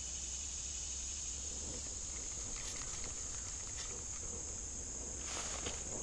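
Steady, high-pitched chorus of insects in late-summer weeds. Near the end, rustling and footsteps through the brush start up.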